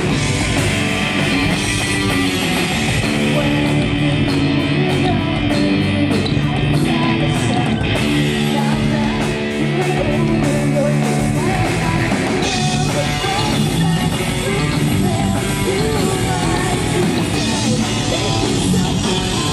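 Loud rock music with electric guitar and singing.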